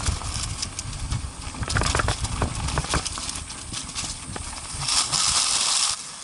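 ATV clattering over a rocky trail: irregular knocks and rattles over a low rumble, with a short burst of rushing noise about five seconds in.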